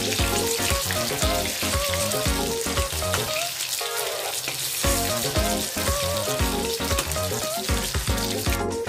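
Fish steaks sizzling as they fry in hot oil in an aluminium kadai, a steady hiss, under background music with a regular beat and a wavering melody; the beat drops out for a second or so near the middle.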